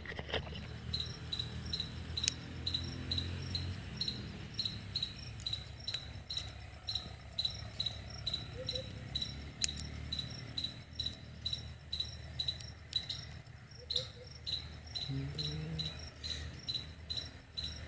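A cricket chirping steadily: short, high chirps repeated evenly about two or three times a second. A few faint clicks come through as well.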